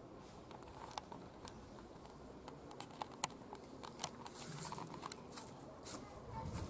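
Faint background noise with scattered, irregular light clicks and ticks that come more often from about three seconds in.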